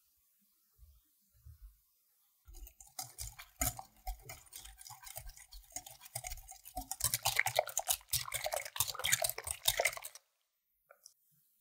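Wire balloon whisk beating an egg, milk and cream batter in a glass bowl: fast clicking and scraping of the wires against the glass. It starts about two and a half seconds in, grows louder as the batter turns smooth, and stops abruptly near the end.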